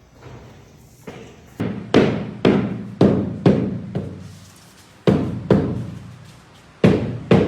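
A run of heavy percussive hits, about a dozen, roughly two a second with a short gap near the middle, each one ringing out before the next.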